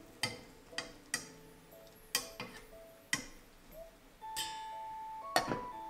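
Metal tongs clinking against the side and rim of a saucepan as meat is turned in the simmering pot: about eight sharp, uneven taps, the loudest near the end. Soft background music plays underneath.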